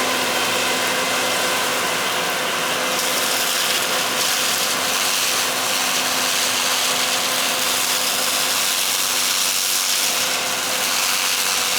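Combine harvester running steadily: a constant engine and machinery drone with a steady hum underneath, unchanging throughout.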